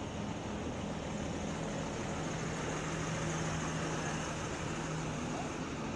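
Diesel engine of a Hino RN285 coach pulling away slowly: a steady low engine drone that swells a little midway and eases as the bus moves off.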